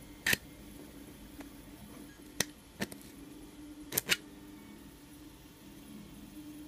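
3D-printed plastic labyrinth gift box being twisted and slid through its maze, giving sharp plastic clicks and knocks, about five in all, with two close together about four seconds in. A faint steady hum runs underneath.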